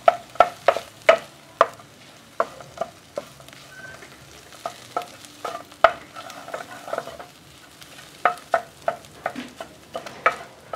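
Spatula scraping and knocking against a frying pan while stirring and breaking up scrambled eggs, with a faint sizzle of frying under it. The knocks come about two or three a second, thinning out around the middle before picking up again near the end.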